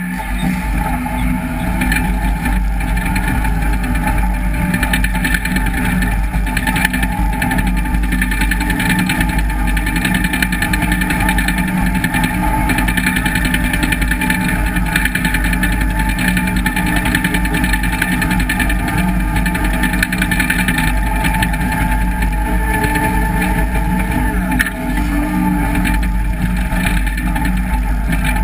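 John Deere 850J crawler dozer's diesel engine running steadily and loud under load as the machine pushes dirt with its blade.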